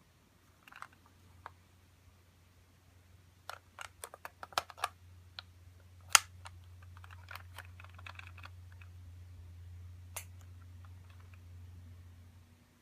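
Sanyo EF-A528A ceiling fan's motor humming while a series of sharp clicks sounds from the fan's switching, a rapid run of them a few seconds in and the loudest single click about six seconds in; this fan is known for clicking noticeably when it changes speed. The hum stops near the end.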